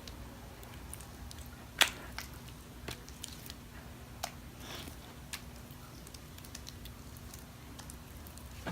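Sticky homemade borax-and-glue slime squelching with scattered small clicks as it is squeezed and pulled in the fingers, the sharpest click about two seconds in.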